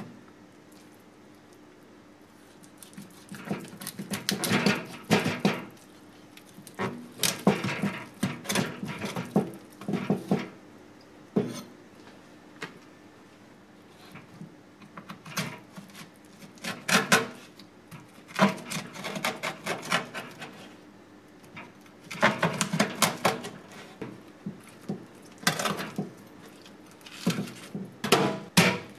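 Kitchen knife cutting and scraping excess skin and scales off a tuna collar on a wooden cutting board. It comes in bursts of quick strokes a second or two long, with short pauses between.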